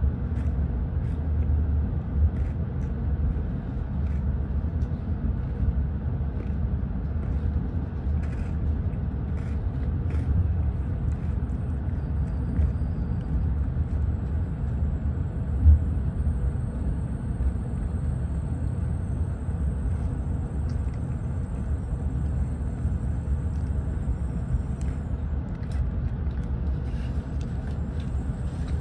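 Tokaido Shinkansen train running, heard inside the passenger carriage: a steady low rumble with scattered light clicks and one louder knock a little past the middle. A faint high whine comes in for several seconds in the second half.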